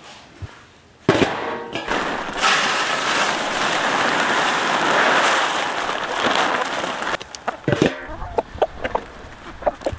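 Chicken feed poured from a bag into a galvanized metal trash-can feeder: a sudden rush of grain hitting and sliding over metal for about six seconds, then scattered ticks and taps.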